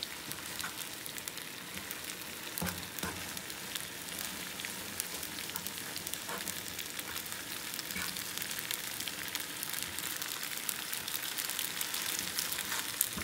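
Spaghetti cooking in a frying pan of pasta water, butter and grated pecorino, a steady sizzle as metal tongs stir the cheese in to make the cream sauce, with a few light clicks of the tongs against the pan.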